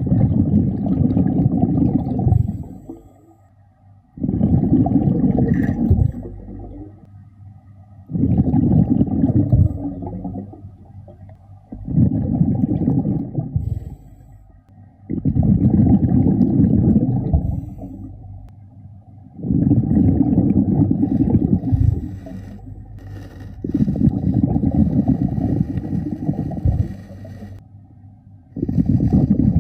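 Scuba diver's breathing through a regulator underwater: a muffled rush of exhaled bubbles about every four seconds, each lasting around two seconds, with quieter inhales between.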